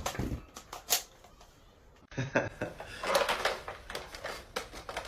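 A series of sharp clicks and knocks, several in the first second. After a sudden break about two seconds in, a busier run of short knocks and rustling noise follows.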